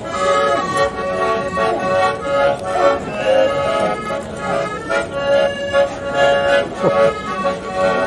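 Accordion playing a tune, its notes coming in short rhythmic pulses.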